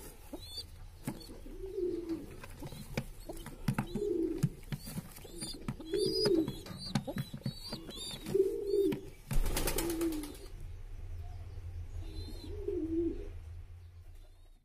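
Domestic pigeons cooing: a low, arching coo repeated about every two seconds, with short high chirps and scattered clicks and rustles from a bird being handled. A brief burst of noise comes near ten seconds in.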